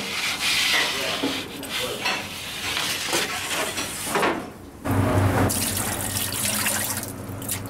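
A metal pizza peel on a long wooden handle scrapes and rubs across the floor of a wood-fired oven. About five seconds in, water is poured from a plastic tub into a steel dough-mixer bowl, splashing over a steady low hum.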